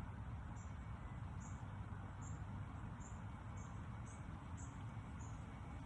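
Outdoor ambience: short high-pitched chirps repeating about once or twice a second over a low, steady rumble.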